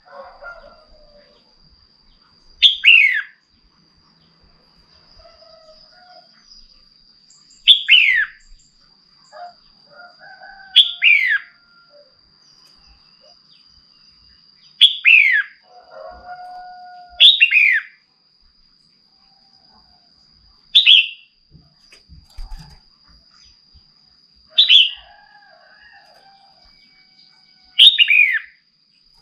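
Female red-whiskered bulbul calling: eight loud, short, sharp notes, each sliding downward, repeated every three to four seconds, with softer lower chirps in between. These are the calls used to excite male bulbuls.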